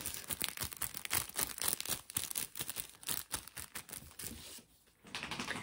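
Crinkling and rustling of a silver polishing cloth being handled: a dense crackle that fades about four and a half seconds in, then a brief rustle near the end.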